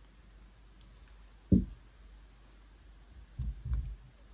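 Hands quietly handling crocheted work and a sewing needle: one dull bump about a second and a half in, a few more low bumps near the end, and faint light ticks.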